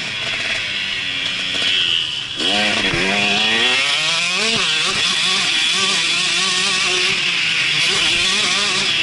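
Motocross bike engine under throttle on a dirt track. About two and a half seconds in it briefly drops off, then revs up in a long climbing pitch and carries on, the pitch wavering as the throttle changes.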